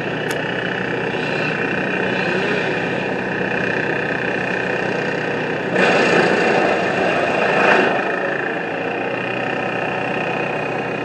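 Engine of tree-work machinery running steadily. About six seconds in it gets louder and noisier for about two seconds, then settles back.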